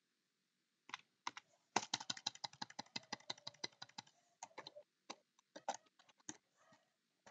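Computer keyboard being typed on: after a short silent start, a fast even run of key presses lasting about two seconds, then slower scattered keystrokes, as text in a query is deleted and retyped.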